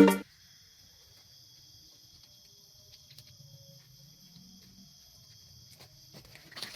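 Faint, steady, high-pitched chorus of insects such as crickets, with a few soft clicks and a rustle near the end.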